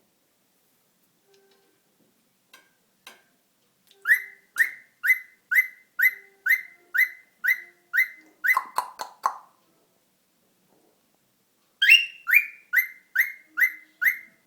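Cockatiel giving a run of short, sharp, high calls, about two a second. A quick rattling burst comes about nine seconds in, then a pause of a couple of seconds, and the calls start again near the end.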